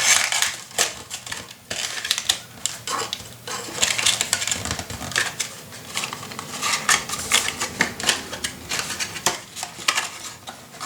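Paper and cardstock pieces being folded and fitted together by hand: an irregular run of rustles, light taps and scrapes on the work surface.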